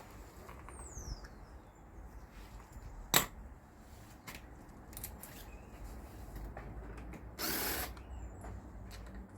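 A power tool works on the bolts of a motorcycle's pannier rail fittings, with a sharp metallic click about three seconds in and a brief louder burst of tool noise about seven and a half seconds in.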